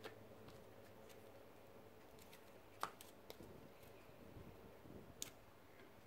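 Faint clicks and taps of plastic-sleeved trading cards being picked up and handled on a wooden table, the sharpest about three seconds in and another near the end, over a low steady hum.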